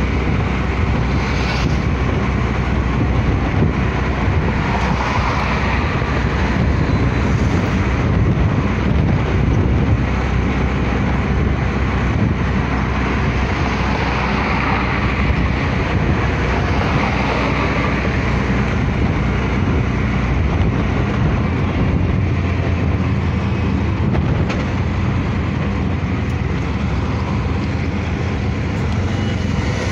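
Bajaj Compact 4S auto-rickshaw's single-cylinder four-stroke engine running steadily on the move, mixed with wind and road rush, heard from inside its open passenger cabin.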